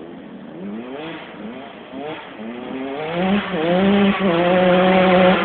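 125cc two-stroke motocross bike accelerating hard through the gears, its engine pitch climbing in a run of rising sweeps, each cut short by an upshift, and getting louder as it comes closer; near the end it holds a steady high rev.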